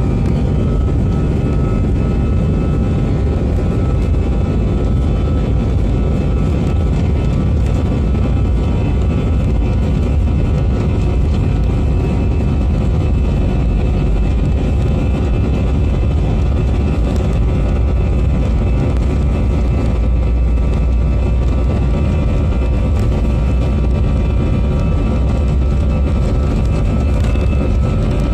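Airbus A320 jet engines running steadily: a constant loud rumble with a few steady engine tones over it.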